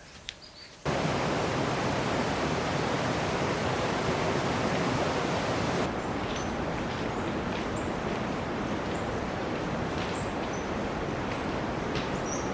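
Steady rush of fast-flowing water, like a river or waterfall, starting abruptly about a second in, with faint bird chirps over it later on.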